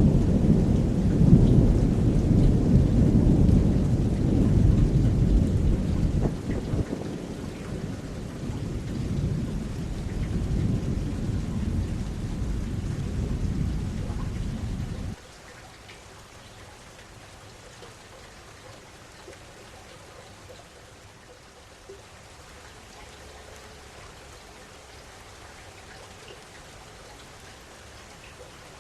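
Long rolling thunder rumbling low and heavy, easing a little, then cutting off suddenly about halfway through, leaving only a soft, steady hiss of rain.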